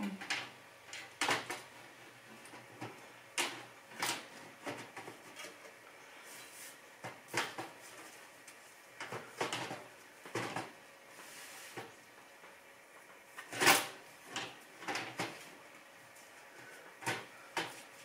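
Scattered clicks and knocks of hands working on a Thermaltake Core V21 steel PC case while fitting its bottom cover back on, about a dozen separate knocks with the loudest about two thirds of the way through.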